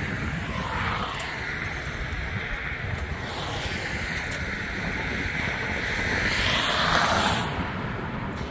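Road traffic passing, a steady rush of tyre and engine noise that swells loudest as a vehicle goes by about seven seconds in, with wind buffeting the microphone.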